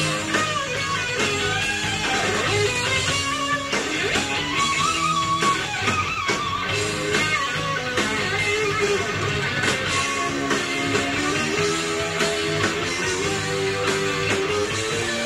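Live rock band playing: an electric guitar carries a melodic lead line with bending notes over bass and drums, heard through an audience recording.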